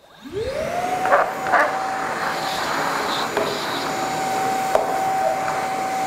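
Milwaukee M18 FUEL 9-gallon dual-battery cordless wet/dry vac switched on: the motor spins up with a rising whine in the first second, then runs steadily with a rush of air through the hose.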